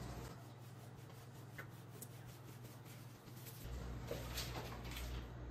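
Faint rubbing and rustling with a few light clicks, from packaged groceries being handled and moved, more of it in the second half.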